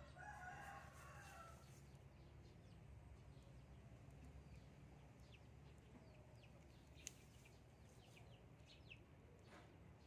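Near silence over a low steady hum, with a faint rooster crow in the first second and a half, followed by scattered faint, short high ticks.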